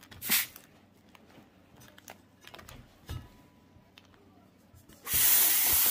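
Helium hissing steadily out of a helium tank's nozzle into a small balloon inside a larger one, starting suddenly about five seconds in. Before it come a short hiss near the start and a few light knocks.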